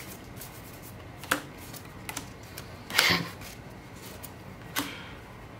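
Magic: The Gathering cards being flipped through by hand one at a time, giving a few short clicks and one louder card snap about three seconds in.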